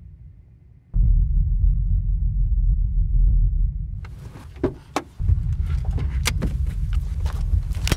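A loud, deep rumble cuts in abruptly about a second in. About halfway through it is joined by crackling noise and sharp clicks.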